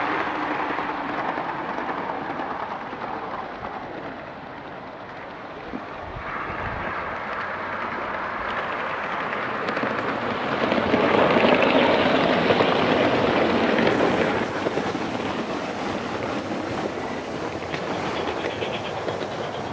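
Gauge 3 live-steam model of an LMS Duchess locomotive, 'City of London', running with a train of coaches on garden railway track. Its running is a steady rumble that grows louder for a few seconds about halfway through as it passes close, then drops back.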